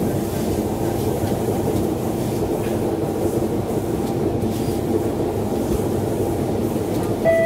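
Siemens C651 metro train running, heard from inside the passenger car: a steady rumble of wheels on rail and running gear. Just before the end a steady high-pitched tone sets in.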